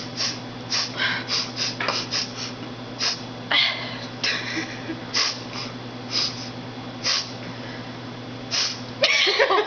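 A person sniffing hard through the nose again and again in short, sharp sniffs, quick and close together at first, then further apart, as if drawing breath in by sniffs alone. Near the end it breaks into laughter.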